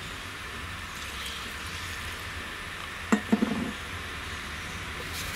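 A short cluster of knocks about three seconds in, over a steady background hum and hiss.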